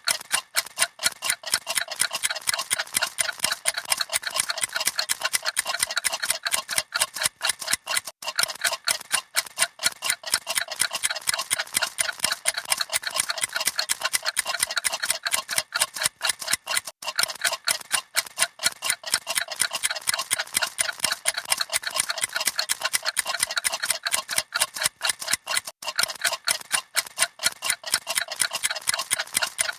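Several clocks ticking at once, a fast, dense run of light overlapping ticks with no pause.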